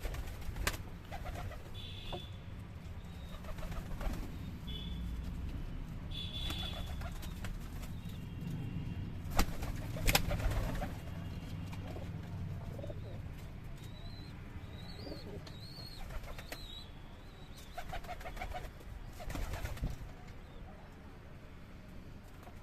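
Domestic pigeons cooing, with a few sharp clatters about nine and ten seconds in and short high calls scattered through.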